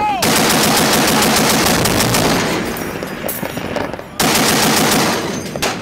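Automatic gunfire: a machine gun firing long, rapid bursts. There is a brief break about four seconds in, then it starts again suddenly.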